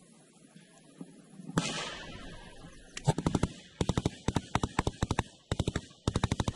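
A single loud bang with a long fading tail, then a belt-fed machine gun firing in repeated short bursts of several rapid shots each, with brief pauses between bursts.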